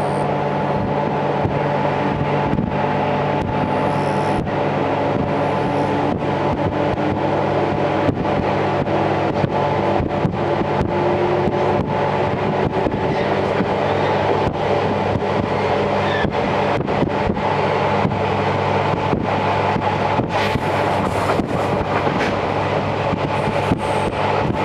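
Series 711 electric train running, heard through an open window: a steady drone under many sharp wheel clicks over the rail joints. Through the middle, one tone rises slowly in pitch as the train gathers speed after a station stop.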